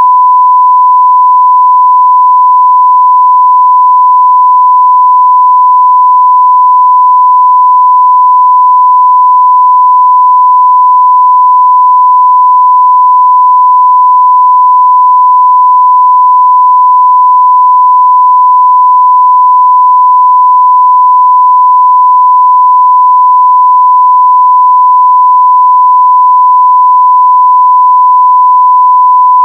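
A continuous 1 kHz sine-wave test tone at full level, one pure steady pitch with no change.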